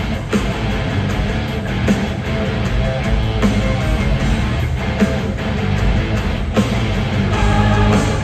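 Symphonic metal band playing live in an arena, heard from within the crowd: distorted electric guitars, heavy drums and keyboards at full volume.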